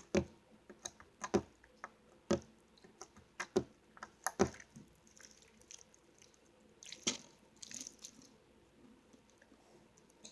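Sticky slime being kneaded by hand, giving sharp wet clicks and pops at irregular intervals, many in the first few seconds and one more about seven seconds in. The slime is still sticky while borax solution is being worked in.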